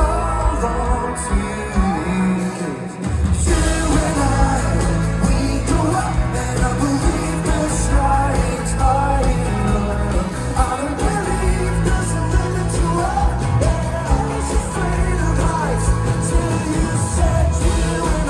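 Live folk-rock band playing a song with vocals over drums, bass and guitars. The bass and drums drop out briefly about two and a half seconds in, then the full band comes back in.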